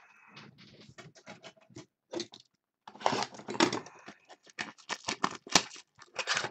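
Trading-card packs being torn open and cards handled: crinkling wrapper and a quick, irregular run of short snaps and flicks, growing louder and busier about halfway through.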